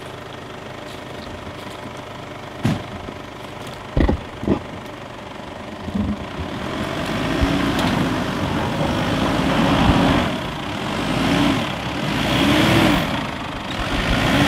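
Four-wheel-drive ute's engine idling, with a few sharp knocks about three and four seconds in. It then revs up and down repeatedly as the vehicle crawls down a rocky section of track.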